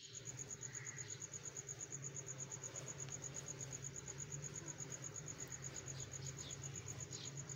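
A cricket chirping steadily, a high pulsed trill of about eight pulses a second, over a faint low hum.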